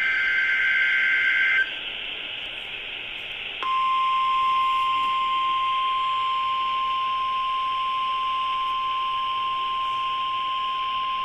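NOAA Weather Radio emergency alert heard through a receiver with steady hiss: a warbling, screeching burst of SAME digital header data for about the first second and a half, a couple of seconds of hiss, then the steady 1050 Hz Warning Alarm Tone from about four seconds in, signalling an Emergency Alert System activation.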